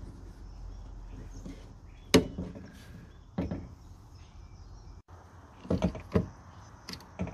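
Sharp clicks and knocks of small lock parts being fitted by hand. The loudest comes about two seconds in and fits the threaded lock rod snapping into its nylon clip on the lock lever. A few more clicks and taps follow near the end.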